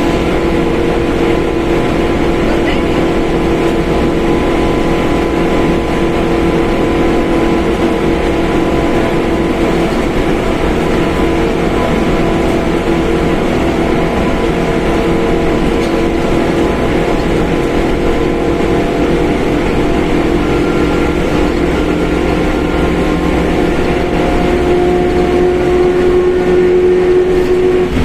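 Mercedes-Benz OF1721 BlueTec 5 bus under way, its engine running with a loud growl from the rear differential heard as steady tones over a low rumble. The differential tone grows louder and slightly higher near the end.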